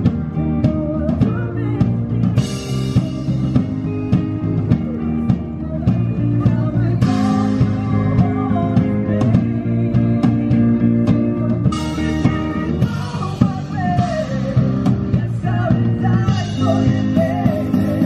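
Live band music played through outdoor stage speakers: sung vocals over electric guitar and keyboard with a steady beat, picked up by a compact camera's built-in microphone.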